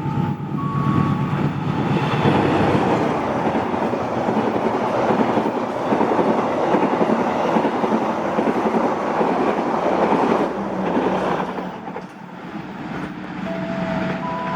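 Intercity passenger train passing at speed: a steady rush of wheel and rail noise with a clickety-clack, easing off about twelve seconds in. A few held tones sound near the end.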